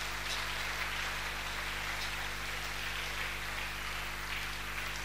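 Steady hiss with a low electrical hum underneath, from the church's microphone and sound system running between words.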